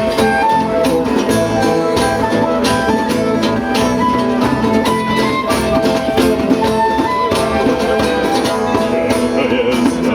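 Live instrumental music with plucked strings and a steady beat of percussion strikes.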